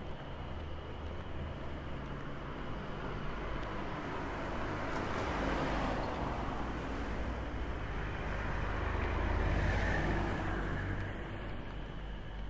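Cars passing on a road, the noise swelling as one goes by about five seconds in and again, lower and louder, near ten seconds.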